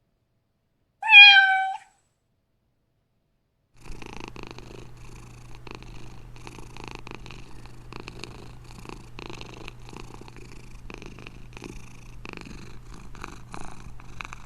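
Domestic cat giving one short meow about a second in, then, after a pause, purring steadily with soft rhythmic pulses.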